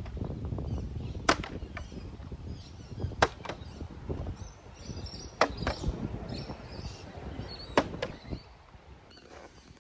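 Walking outdoors: a low rumble of steps and wind on the microphone, with sharp clicks every couple of seconds and faint high chirps. The sound grows quieter near the end.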